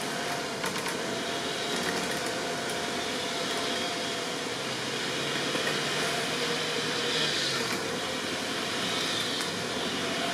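Off-road vehicle's engine running with a steady drone.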